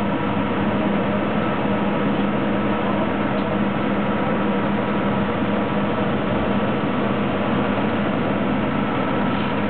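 Machinery running steadily, an even noise with a constant hum.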